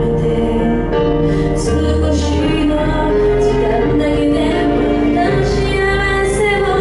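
A woman singing a slow Japanese pop ballad live into a handheld microphone, her voice amplified over backing music.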